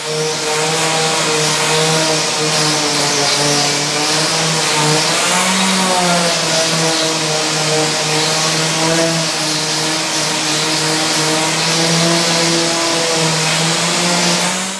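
Random orbital sander running steadily on plywood boards with 220-grit paper. The motor hums under the hiss of the pad on the wood, and its pitch wavers a little partway through.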